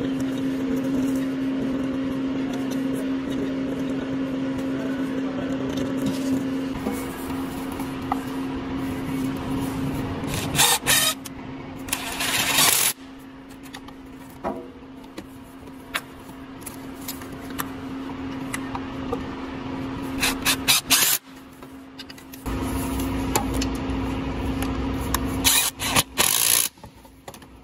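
Hands refitting parts and wiring in a truck engine bay: several short bursts of rubbing and clatter over a steady mechanical hum.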